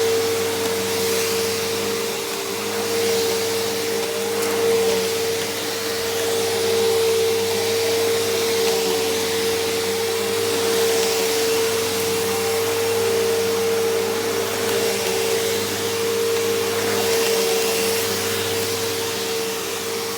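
Bissell CleanView PowerTrack Deluxe bagless upright vacuum running steadily, a high motor whine over the rush of air, its level swelling and easing gently every couple of seconds.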